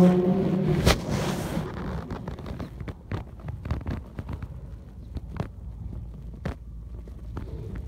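An imam's long chanted note dies away about a second in. A sharp knock follows, then irregular clicks, knocks and rustling close to the microphone, like a phone being handled or shifting in a pocket.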